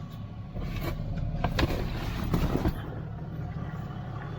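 A vehicle engine idling with a steady low rumble. Rustling and a few sharp clicks of things being handled come about halfway through.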